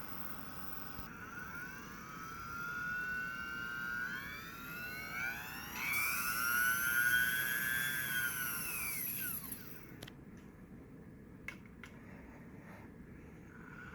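Small electric motor of a watchmaker's lathe whining, its pitch rising in steps as it speeds up, then falling as it slows and stopping about ten seconds in. A couple of sharp clicks follow, and the motor starts up again near the end.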